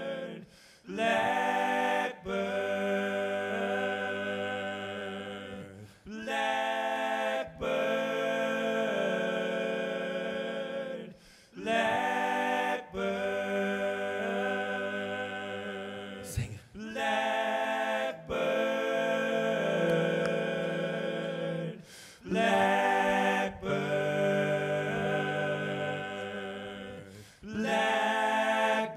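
Layered a cappella voices built into a live vocal loop: a sustained sung chord that repeats, breaking off for a moment and restarting about every five and a half seconds.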